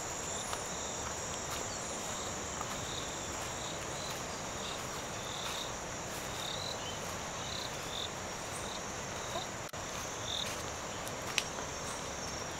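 Steady high-pitched insect chorus of crickets or similar insects, with short chirps coming in now and then.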